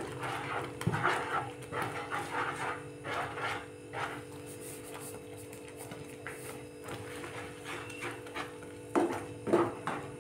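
Wooden spoon stirring and scraping thick palm-fruit pulp in a pan, in irregular strokes that come mostly in the first few seconds and again near the end, over a steady low hum.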